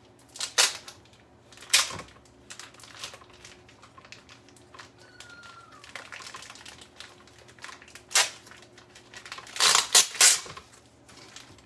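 Plastic bacon packaging crinkling and crackling as it is handled and opened, in several short sharp crackles with quieter rustling between, the loudest cluster near the end.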